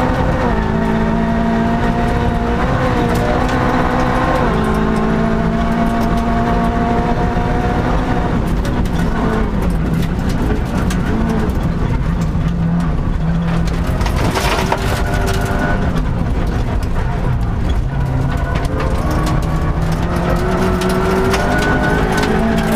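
Vauxhall Corsa 1600 rally car's 1.6-litre engine at full effort, heard from inside the cabin, its pitch climbing and dropping with gear changes and lifts of the throttle over the noise of the tyres on gravel. A burst of clatter from underneath about two-thirds of the way through.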